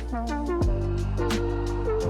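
Background music: a melodic line of held notes over a sustained bass, with sharp percussion hits and deep bass-drum thumps.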